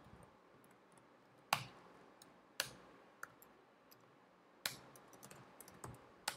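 Typing on a computer keyboard: irregular light key clicks, with four sharper, louder key strikes spread through.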